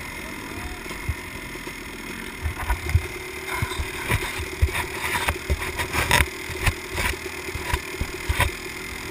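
Fingers handling a GoPro camera in its plastic housing right at the microphone: irregular knocks, clicks and rubbing, thickest in the second half. A steady hum runs underneath.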